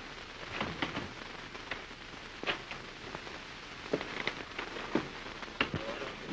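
Steady hiss of an early-1930s sound-film track with irregular clicks and crackles scattered through it.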